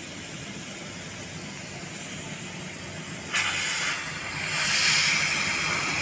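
Gas hissing out of an open pipe of a refrigerator's sealed system as the running compressor blows it through, clearing leftover water from flushing. The hiss is faint at first, jumps suddenly louder a little past three seconds in, and grows stronger again about a second later.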